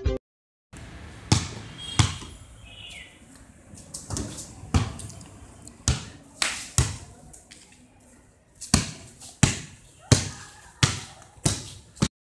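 Basketball bouncing on a paved court: a run of sharp, irregular thuds, spaced out at first and coming about two a second in the second half.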